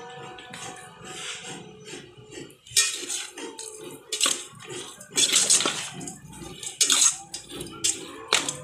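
A metal spoon stirring pork pieces in a metal pot, scraping and clattering against the pot, with strokes coming louder and more often from about three seconds in.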